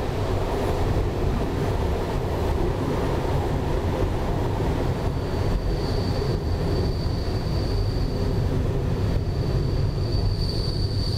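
A train running along the track with a steady low rumble. From about five seconds in, a thin high squeal comes and goes above it.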